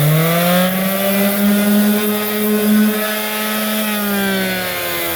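Electric orbital sander running on plaster, its motor hum just reaching full speed and holding steady, then dropping somewhat in pitch about four seconds in.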